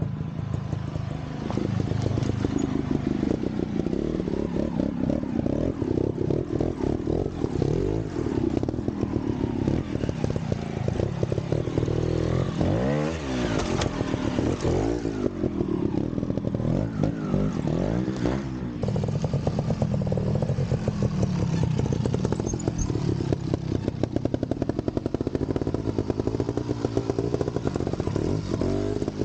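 Vintage trials motorcycle engine running at low revs and blipped repeatedly, its pitch rising and falling several times in quick succession partway through.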